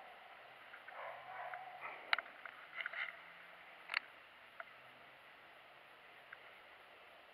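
A few faint clicks and knocks from handling a baitcasting rod and reel aboard a plastic kayak, the two sharpest about two and four seconds in, over quiet open-air background.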